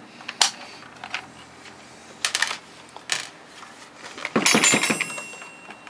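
Clicks and knocks of a reciprocating saw being taken apart by hand, then a burst of metallic rattling and clinking with a ringing note about four seconds in, like small metal parts jangling.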